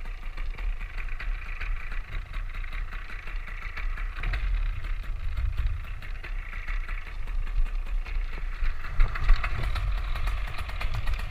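Polini Thor 130 single-cylinder two-stroke paramotor engine running steadily at low throttle.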